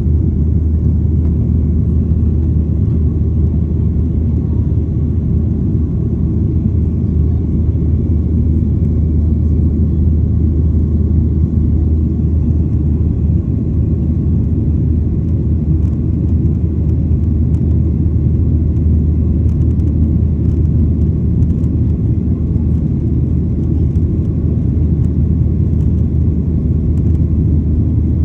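Steady low rumble that holds the same level throughout, with no distinct events.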